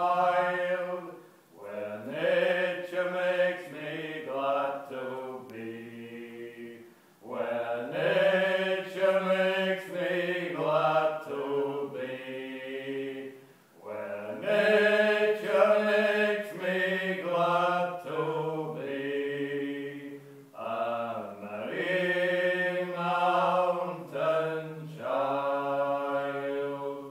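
Two men singing an old English song unaccompanied, in long phrases with brief pauses for breath between them.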